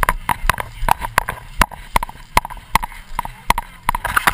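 Running strides on grass, a steady beat of knocks about four a second, with the camera jolting at each footfall.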